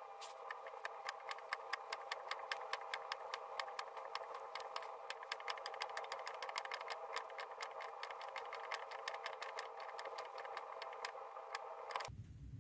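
Gear teeth being cut by shaping on a lathe with a homemade planing cutter, played back eight times faster: the cutter's strokes through the tooth slots come as rapid, regular clicks, about five a second, over a steady hum. The sound cuts off abruptly just before the end.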